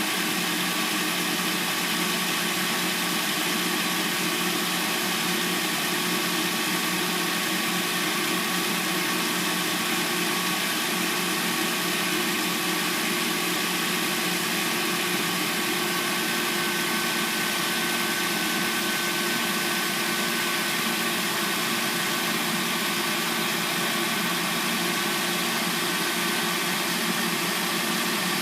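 Hyundai Sonata replacement engine idling steadily in its first minutes after an overnight cold start, before it has fully warmed up. A thin high whine joins the running sound about halfway through.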